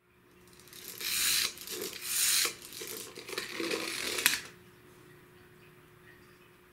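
Rasping, rubbing noise in a few bursts of about half a second, ending in a sharp click a little over four seconds in.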